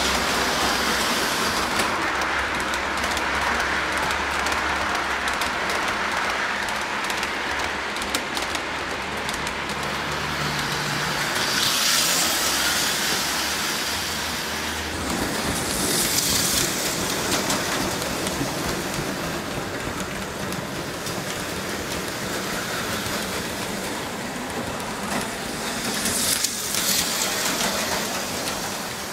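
HO-scale model trains running along the layout: a steady running noise of metal wheels on rail and electric motors, with three brief louder swells.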